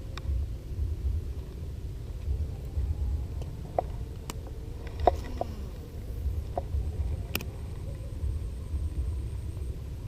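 Steady low rumbling noise, like wind buffeting a microphone, with a few sharp clicks, the loudest about five seconds in and again past seven seconds.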